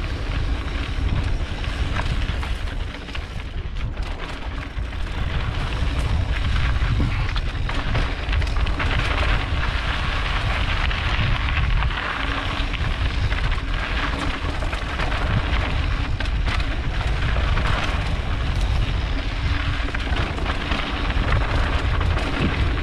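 Mountain bike riding fast over a rocky trail: tyres crunching and crackling over gravel and rocks, the bike rattling, with a steady low rumble of wind on the microphone.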